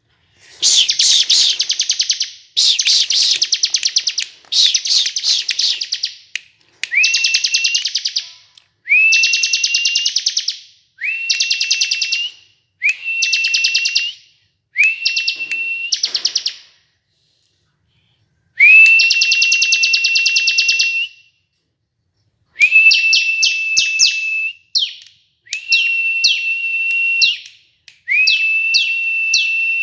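Ciblek kristal (bar-winged prinia) singing: about a dozen loud phrases, each roughly two seconds long, with short pauses between. Each phrase is a fast, buzzy, high trill, and the later phrases carry a steady high whistled note beneath it.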